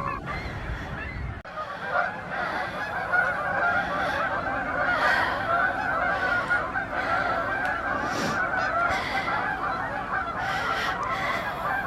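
A large flock of geese honking continuously, many calls overlapping into a dense chatter.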